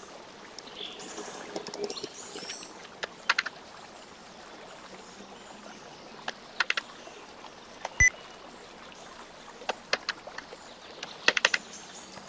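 Computer keyboard keys and mouse clicks in short clusters of a few clicks each, over a steady low hiss, as dimension values are typed into a drawing program; one sharper single click about eight seconds in.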